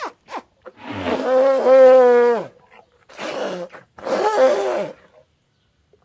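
Elephant growling: a long pitched call held about a second and a half that drops away at its end, followed by two shorter, rougher calls.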